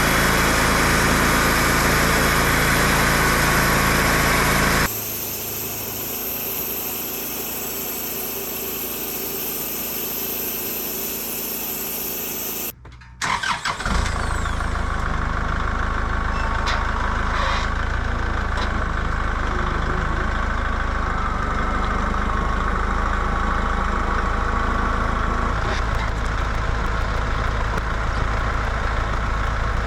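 Wood-Mizer LT15 Wide bandsaw mill's engine running steadily, with hard edits: it drops abruptly to a quieter running sound about five seconds in, cuts out for a moment around thirteen seconds, then runs steadily again.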